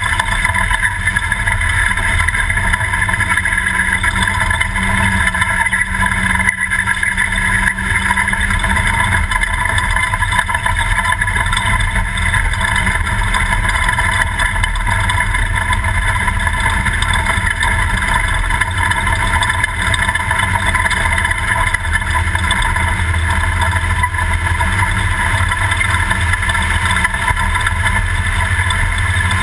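Toyota Class 2000 desert race truck running at speed: steady, loud engine and driveline noise.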